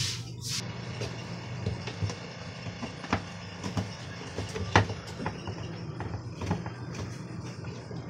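Scattered clicks and knocks of metal on hard plastic as a replacement washing-machine gearbox is fitted to the tub base and worked into place with a metal rod, over a steady low hum.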